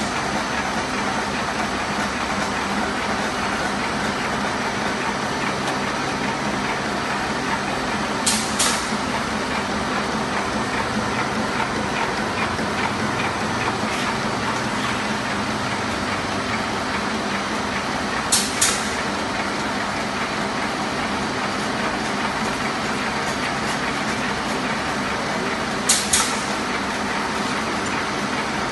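Fully automatic dry dhoop batti making machine running steadily, its motor and drive making a dense mechanical noise as it extrudes sticks onto the conveyor. A sharp double click sounds three times, roughly every eight to ten seconds.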